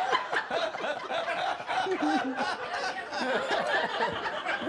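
Studio audience laughing, many people chuckling and laughing together.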